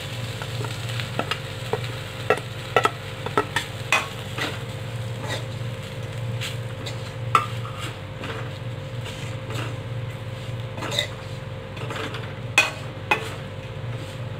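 Spatula scraping and knocking irregularly against a steel kadhai as fried green chillies and besan are stirred and roasted, over a light sizzle of hot oil and a steady low hum.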